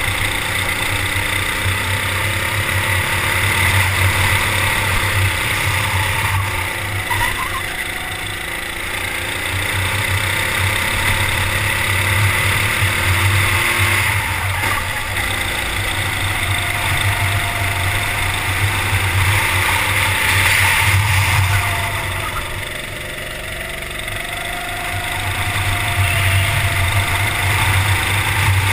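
Kart engine heard from onboard at racing speed, with wind and road noise over it. Twice, about a quarter of the way in and again near the end, it falls away as the driver lifts off for a corner, then picks up again.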